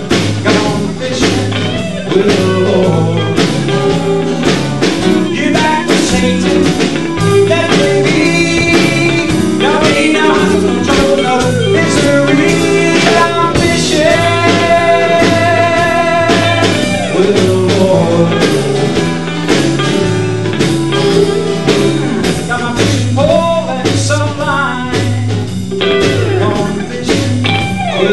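A live band plays a blues-rock song on electric guitar, electric bass, acoustic guitar and a drum kit, with a steady beat and held lead notes over it.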